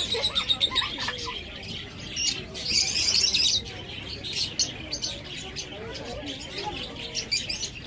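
Many small caged birds chirping at once, a busy chatter of short, high calls, with a louder, denser burst of chirping about two and a half seconds in.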